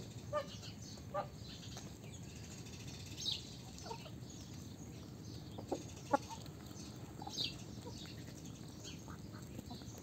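Domestic ducks and chickens foraging: scattered short quacks and clucks, the loudest about six seconds in, with a few high falling chirps over a steady low background noise.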